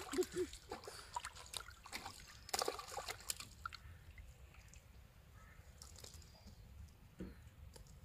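A hooked fish thrashing and splashing at the water's surface as it is pulled in on a bamboo rod. A quick run of splashes over the first three seconds or so, then quieter once the fish is lifted out.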